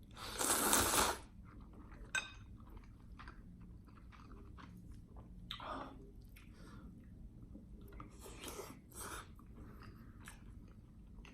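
Close-miked eating sounds: a loud bite about a second long right at the start, then quieter chewing with small scattered clicks and smacks.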